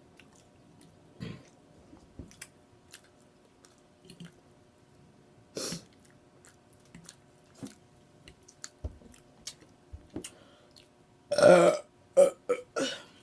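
Scattered wet chewing and lip-smacking clicks, then about eleven seconds in a loud, strained burp followed quickly by three short burps.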